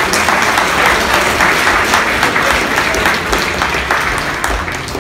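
Audience applauding: dense clapping that fades near the end.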